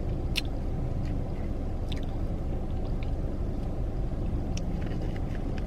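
Steady low rumble inside a car cabin, with a few short sharp clicks, about four in all, from eating at close range.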